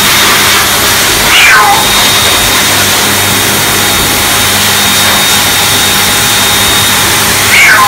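Pet grooming dryer blowing steadily through its hose over a shaved cat, while the cat meows twice, each meow falling in pitch: about a second and a half in and again near the end.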